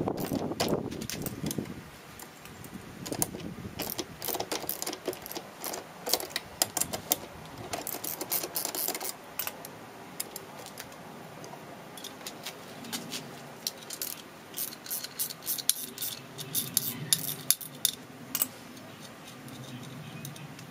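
A socket ratchet clicking briefly at the start, then scattered light metallic clicks and clinks as the loosened nut and bolts of a lawn mower blade are turned off by hand and handled.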